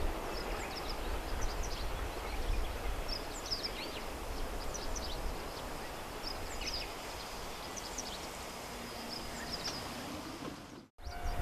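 Small birds chirping in short repeated calls over a low, steady outdoor rumble, cutting off suddenly near the end.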